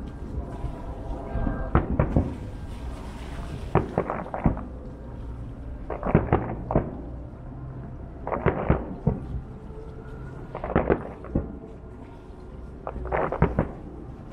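Aerial firework shells bursting: sharp bangs in clusters of two or three, about every two seconds, over a steady low rumble.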